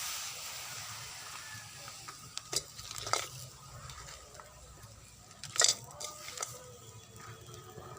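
Cooking on a pot or pan: a hiss that fades over the first two seconds, then a few sharp knocks of a utensil against the cookware, the loudest about five and a half seconds in.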